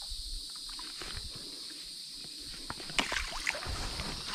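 Water splashing and sloshing as a hooked bowfin thrashes at the surface and is worked toward a landing net. The water is fairly calm at first, with a flurry of splashes starting about three seconds in.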